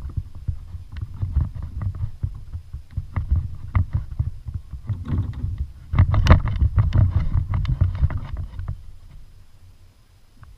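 Handling and water noise aboard a fishing kayak: a low rumbling with many short knocks and clicks, busiest in the middle and dying down near the end.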